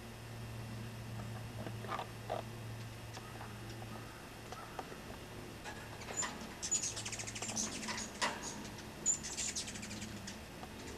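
Hummingbirds chittering: quick runs of high, thin chips, busiest from about six seconds in, over a steady low hum.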